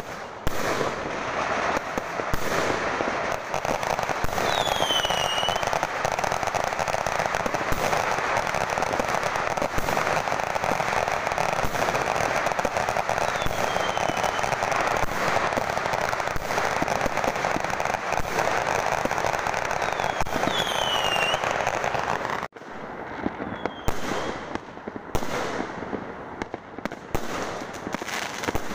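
Fireworks going off in a dense, continuous barrage of crackling and popping, with a few short falling whistles. About two-thirds of the way through, the barrage drops away into scattered separate bangs.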